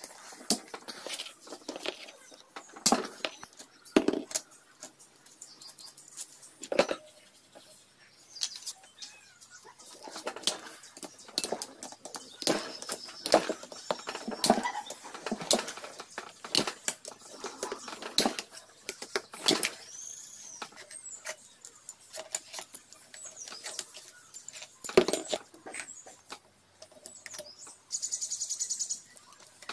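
Hand tools, bolts and small metal parts clicking, tapping and clinking irregularly against a motorcycle engine's crankcase as its side cover is unbolted and taken apart, with a rapid run of clicks near the end.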